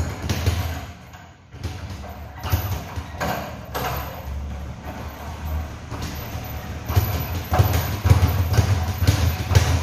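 Irregular thumps and smacks of gloved punches on a double-end bag, mixed with shuffling footwork on the floor.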